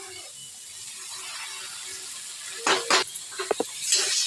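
Onion-tomato masala sizzling in a kadhai as mashed roasted eggplant is added. From a little past halfway, a steel spoon scrapes and clacks against the pan several times as it is stirred in.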